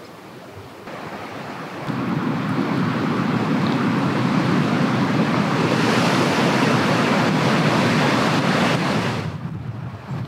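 Wind blowing: a steady rushing noise that swells up about two seconds in and cuts off suddenly near the end.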